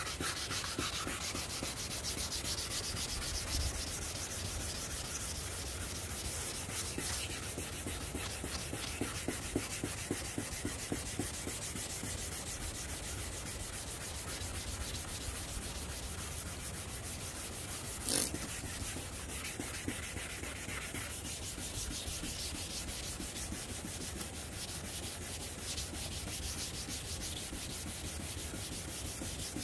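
Sandpaper scrubbing steadily over a 2006 Honda CR-V's headlight lens, taking off the old, soft clear coat. One sharp knock about eighteen seconds in.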